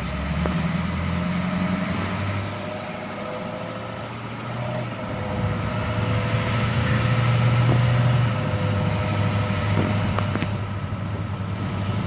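Pickup truck's engine running under light throttle as the truck pulls away and gathers speed, heard from inside the cab with road noise.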